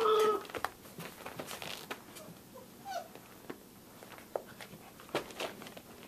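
A Samoyed puppy gives a short high yelp that falls in pitch, followed by scattered light taps and scuffles of the puppies at play and a brief small squeal about three seconds in.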